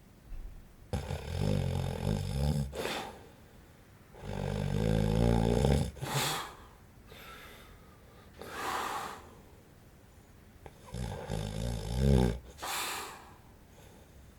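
A man in his forties snoring in his sleep: three loud rattling snores on the in-breath, each followed by a short breathy out-breath, with one more puff of breath between the second and third.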